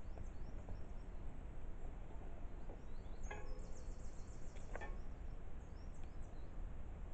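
Woodland ambience: a steady low rumble with scattered faint high chirps, a few short clicks, and a brief buzzy trill about halfway through.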